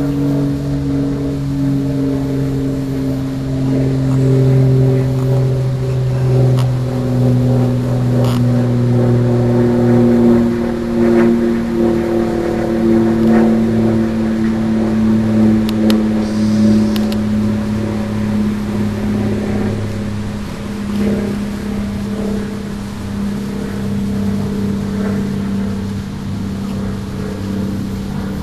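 A steady engine drone made of several pitched tones that sink slowly in pitch, louder in the first half and easing off in the second.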